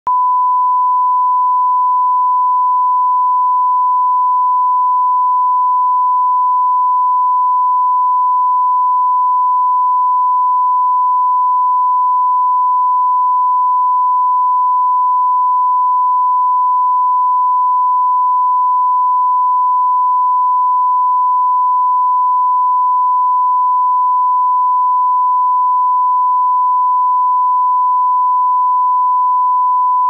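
Broadcast line-up test tone: a steady, unbroken 1 kHz sine tone that accompanies colour bars.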